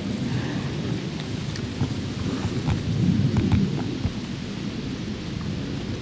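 Wind buffeting the microphone: a gusty low rumble, strongest about three seconds in, with a few light clicks scattered through it.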